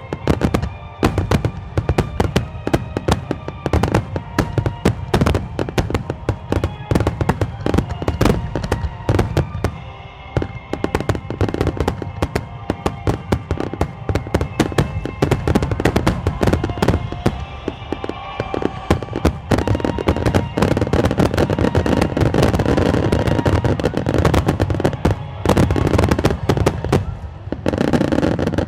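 Aerial fireworks bursting in a rapid barrage, sharp bangs following one another with music playing underneath. In the last third the bursts come so thick that they run together into a near-continuous loud crackle, then break off near the end.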